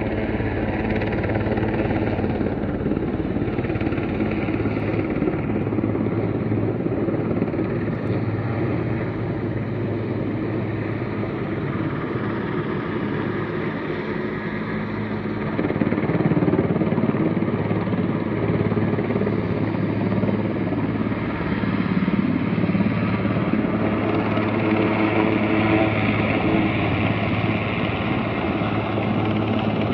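Helicopter flying with a load slung on a long line: a steady rotor and engine drone that grows somewhat louder about halfway through.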